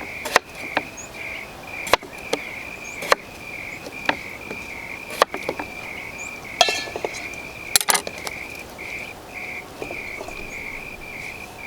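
Chef's knife cutting Yukon Gold potatoes into wedges on a cutting board: sharp, irregular knocks about once a second as the blade comes down through each potato. Behind them, insects chirp in a steady pulsing trill.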